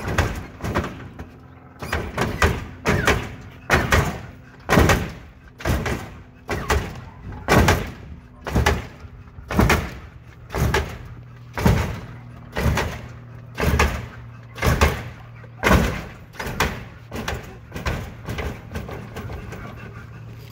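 A 1987 Oldsmobile Cutlass lowrider's hydraulic suspension hopping the front end over and over, about once a second, each hop a sharp clunk as the car comes down. A steady low hum runs underneath. The hops weaken and die away over the last few seconds.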